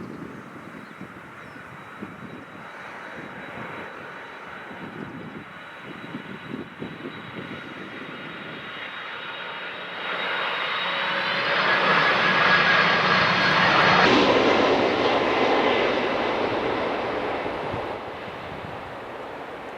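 Boeing 747-400 jet airliner passing by on its landing approach: a high engine whine over a rushing roar that builds to a peak, then the whine drops away suddenly as it passes and the roar fades.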